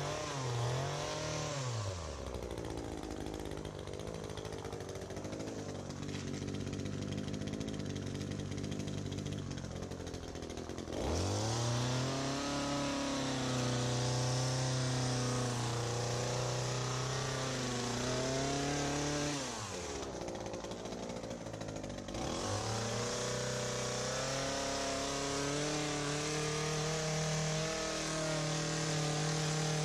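The small two-stroke engine of an ECHO PAS2620 power base drives the articulating hedge trimmer attachment's blades. The throttle drops to idle shortly after the start and revs back up about eleven seconds in. It eases off again for a couple of seconds about two-thirds through, then revs back up and holds.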